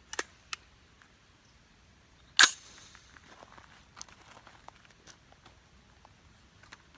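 A single shot from a Diamondback AR-15 in .223 about two and a half seconds in, with a short echo trailing off after it. A couple of faint clicks come just before it, near the start.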